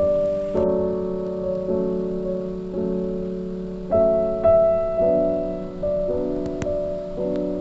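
Background piano music: slow, soft chords, a new chord struck about once a second and left to fade.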